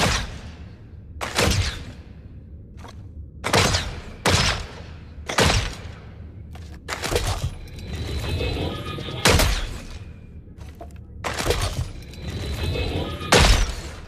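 Bow and arrow sound effects: a string of about nine sharp shots, each with a short fading tail, spaced a second or two apart. Twice a longer drawn-out noise with a faint ringing tone builds before the shot.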